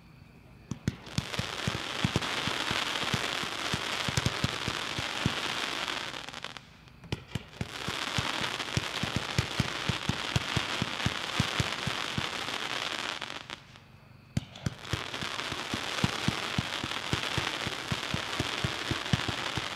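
Epic Fireworks' V.I.P., a 67-shot firework cake, firing: rapid launch pops over a continuous hiss. It goes in three spells of about six seconds each, with short pauses between them.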